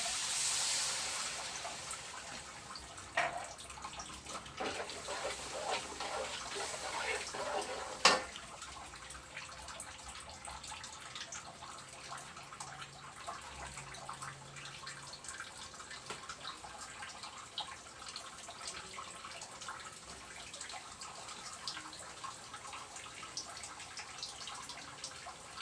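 Kitchen cooking sounds: a steady hiss fades out over the first couple of seconds. Then cookware and utensils clatter, with a sharp knock about eight seconds in, and faint crackling ticks continue after that.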